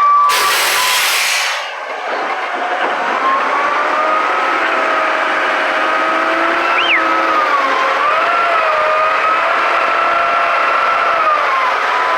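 Heavy paving machinery: a loud hiss for about a second and a half at the start, then a machine whine that wavers up and down in pitch over a steady running noise.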